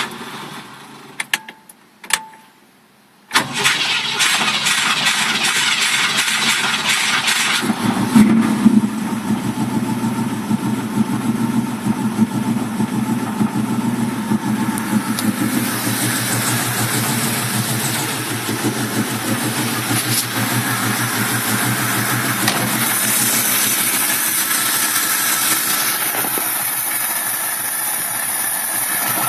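1965 Mustang V8 with an Autolite 2150 two-barrel carburetor being started. After a brief quiet with a couple of clicks, the starter cranks for about four seconds. The engine catches with a loud bang about eight seconds in and settles into a rough idle.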